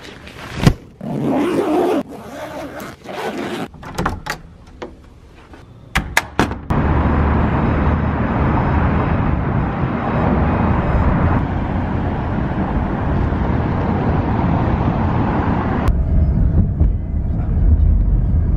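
A few sharp knocks, clicks and short rustling bursts, then steady city traffic noise. About five-sixths of the way through it turns to the deeper, steady rumble of riding inside a car.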